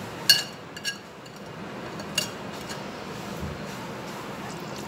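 A ceramic plate clinking against the rim of a ceramic bowl as spices are tipped and knocked off it: a few short ringing clinks, the first the loudest.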